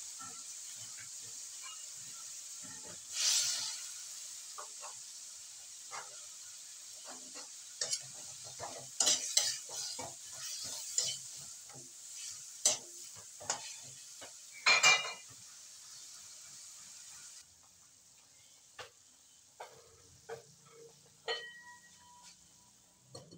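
Chicken feet sizzling in hot oil in a wok while they are stirred and tossed, with a spatula scraping and clattering against the metal, loudest a few seconds before the end of the stirring. About two-thirds of the way through the sizzle drops away, leaving only a few light clinks.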